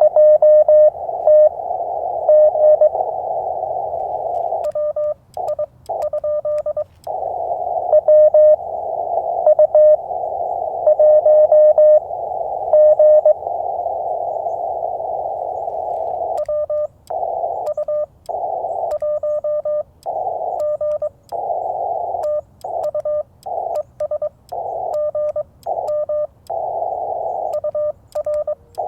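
Morse code from a Yaesu FT-891 transceiver: a steady mid-pitched tone keyed in dits and dahs over the hiss of the receiver's narrow CW filter. In the second half the hiss keeps dropping out in short gaps.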